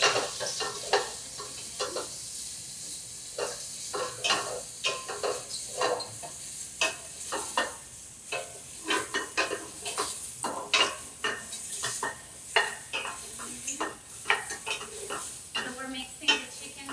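Chicken sizzling in caramelized sugar in a pan, browning, while a utensil stirs it, scraping and clicking irregularly against the pan.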